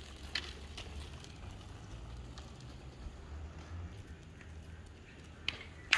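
Quiet outdoor street ambience: a steady low rumble, like wind on the microphone, with a few faint clicks, two near the start and two near the end.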